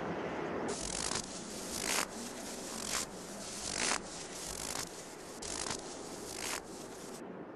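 Hand saw cutting through a wooden log: a run of steady back-and-forth rasping strokes, roughly one a second, starting about a second in and stopping shortly before the end.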